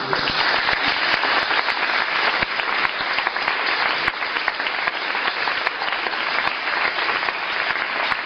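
Audience applauding, breaking out suddenly and keeping up a steady, dense clapping throughout.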